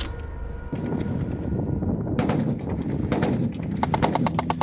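Heavy machine gun firing a long, rapid burst of about ten shots a second, starting about four seconds in. Before it come two short bursts of noise.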